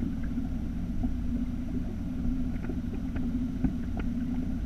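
Boat motor running with a steady low hum, heard from the bow of a bass boat, with scattered light ticks and knocks over it.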